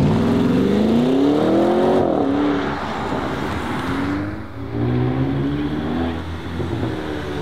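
Car accelerating away hard, its engine revs climbing for about two seconds and dropping at a gearshift. After that comes another car's engine, running at lower, steadier revs as it approaches.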